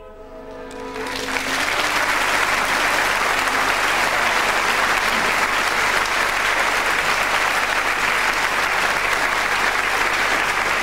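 Live theatre audience applauding: the clapping swells in about a second in and then holds steady.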